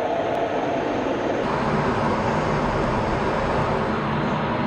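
F-16 fighter jet in flight: engine and rushing airflow noise picked up by a camera in the cockpit, steady and loud. About a second and a half in the sound shifts and a low steady hum comes in.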